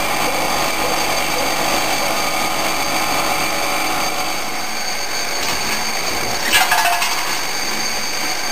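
Six-station CNC transfer machine running, a steady mechanical noise with several constant high-pitched whines. About two thirds of the way through comes a brief, louder hiss-like burst.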